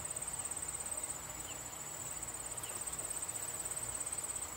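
Insects trilling in a steady, high-pitched chorus that pulses rapidly and evenly without a break.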